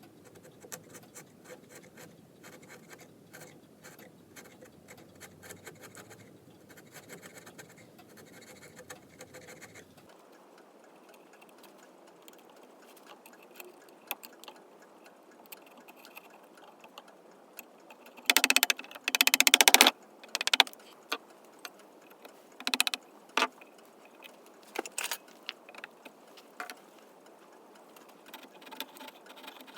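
Workshop handling sounds from work on a wooden clock case: scattered light clicks and knocks, with two loud scraping bursts about two-thirds of the way through.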